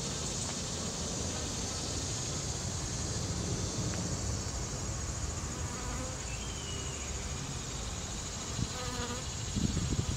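Honey bees buzzing as they fly to and from a sugar-syrup feeder, over a steady background hiss, with a brief louder low thump near the end.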